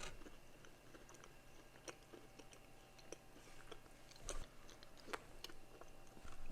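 A person chewing and biting crunchy food, with scattered crisp crunches, the loudest about four seconds in and again a second later.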